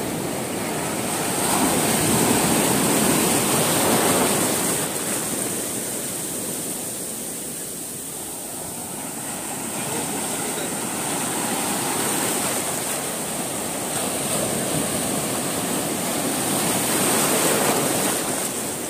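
Sea surf breaking and washing up a sandy beach, a steady rushing that swells and eases. It is loudest about two to four seconds in and again near the end.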